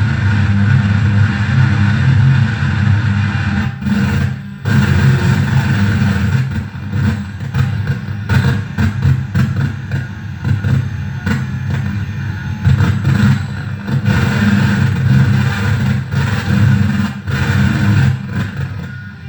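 Harsh noise music from a mixer feedback rig with reel-to-reel tape, reverb and bass: a loud, dense low rumbling drone with hiss above it. It cuts out briefly about four seconds in and again near the end.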